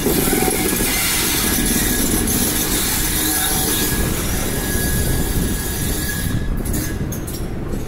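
VIA Rail Siemens Venture passenger train rolling past and pulling away, its wheels and cars making a steady rumble and hiss with faint wheel squeal. The hiss falls away about six seconds in as the last car recedes, leaving a low rumble.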